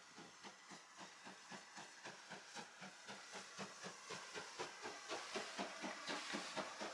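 USA S160 2-8-0 steam locomotive working along the platform with even exhaust chuffs, about four a second, growing louder as it draws close and passes.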